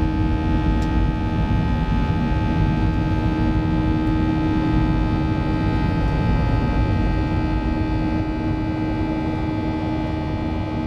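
Cabin noise inside a Boeing 737-700 climbing after takeoff: a steady rush of airflow and its CFM56-7B turbofan engines at climb power, with several steady whining engine tones over it.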